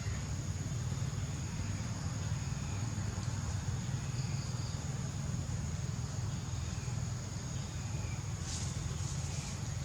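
Outdoor background: a steady low rumble under a constant high-pitched whine, with a few faint short chirps.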